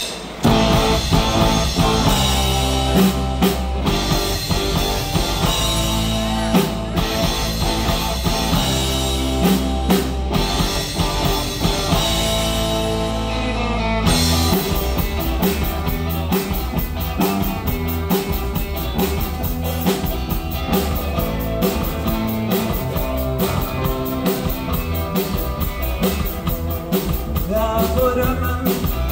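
Live rock band with electric guitars, electric bass and drum kit playing a song intro, starting suddenly. About halfway through, the full band comes in with a faster, steady driving beat.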